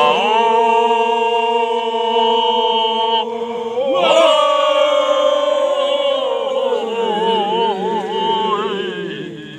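Men's voices chanting lian dadolin, a Timorese ritual chant, in long held notes. The pitch shifts about four seconds in, wavers through an ornamented passage a few seconds later, and falls near the end.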